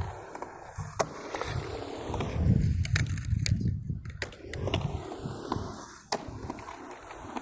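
Skateboard rolling, with several sharp clacks of the board, the clearest about a second in, around three seconds and just after six seconds. A gusty low rumble of wind on the microphone runs underneath.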